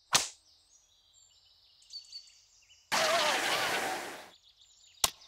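A shogi piece snapped down onto a wooden board with a sharp 'pachin' click, and again near the end. Between the two clicks come faint high bird chirps and a rushing noise about a second and a half long.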